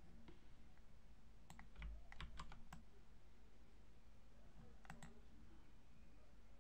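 Faint clicking at a computer keyboard and mouse: a quick run of about six clicks around two seconds in, then two more near five seconds.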